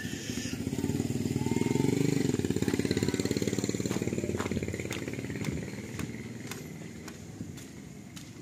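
Motor vehicle engine running close by, growing louder over about two seconds and then fading away as it passes. A few faint clicks come near the end.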